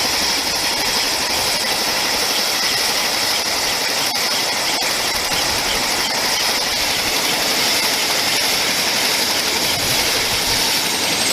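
AH-64 Apache helicopter's twin turboshaft engines running with a steady rushing whine. A faint high tone slides slowly downward near the end.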